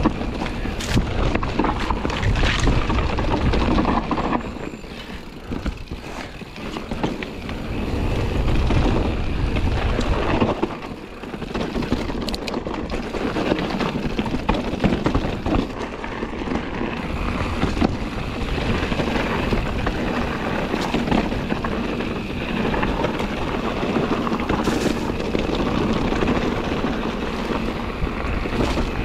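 A Scott Ransom 900 full-suspension mountain bike riding fast down a rough dirt singletrack: wind buffeting the microphone and tyres rolling over dirt and rocks, with scattered knocks from the bike. The noise eases briefly around five and eleven seconds in.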